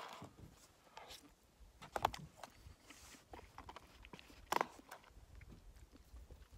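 A long-handled spoon stirring food inside a foil-lined freeze-dried meal pouch: faint, scattered crinkles and scrapes, with sharper crinkles about two seconds in and again a little after four and a half seconds.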